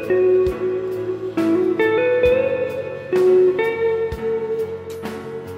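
Background music: a guitar tune with notes that slide up in pitch, over a steady drum beat of about one hit a second.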